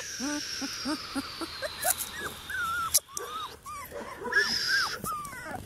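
Porti-Doodle puppy (Portuguese Water Dog × Standard Poodle) whimpering in a rapid run of short, high, falling whines, about four a second, with a brief pause about three seconds in. The whining is that of a puppy frightened by something it finds scary. A few light clicks come through.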